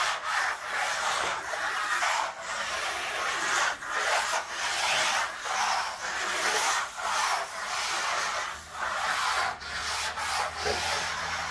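Steel trowel scraping over a dry first coat of decorative plaster in repeated rasping strokes, about one and a half a second. It is knocking off the leftover sharp dried grains before the second coat goes on.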